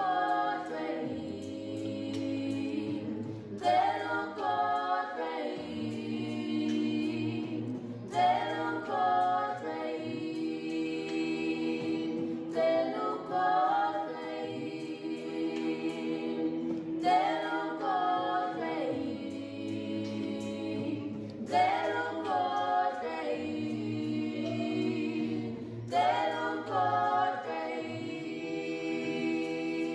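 Background music: several voices singing over a low sustained part, in phrases that repeat about every four and a half seconds.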